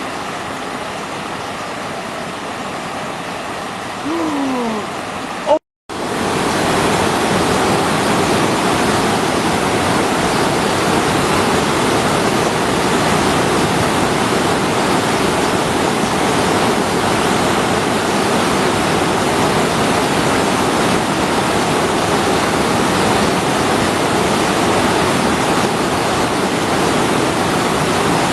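River water rushing in a steady roar of noise. A little over five seconds in the sound cuts out for a moment, then returns louder and steady. Just before the cut there is a brief falling whistle-like tone.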